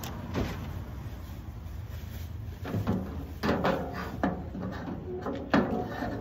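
Metal mesh panel of a steel BBQ pit clanking against the frame as it is lowered and fitted into place: a string of separate knocks with brief metallic ringing, the loudest near the end.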